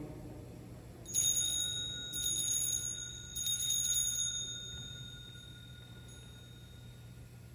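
Altar bells (sanctus bells) rung three times, about a second apart. Each ring is a bright jangle of small bells that rings on and fades out slowly. In the Mass this ringing marks the elevation at the consecration.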